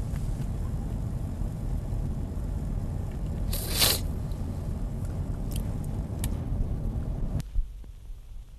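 Road and engine noise heard inside a moving car's cabin: a steady low rumble, with a brief loud hiss about three and a half seconds in and a few faint clicks. The rumble drops away suddenly near the end, followed by a thump.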